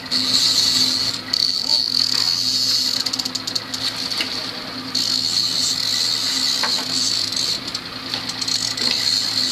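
Fishing reel drag buzzing, high and steady, as hooked fish take line. It cuts out briefly about a second in and for about two seconds near the middle, over the low steady hum of the boat's outboard motors.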